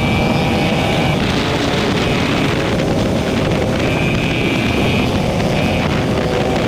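Yamaha R15's single-cylinder engine running in fifth gear at highway speed, under heavy wind rush on the microphone. The engine's higher note drops away about a second in as the rider eases off the throttle, and comes back around four seconds in.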